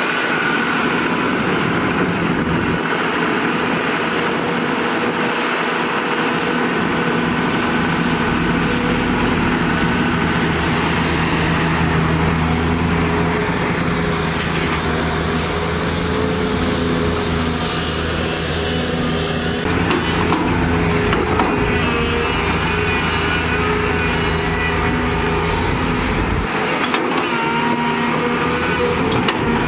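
Large Volvo EC480DL crawler excavator's diesel engine running steadily under load as it digs and loads.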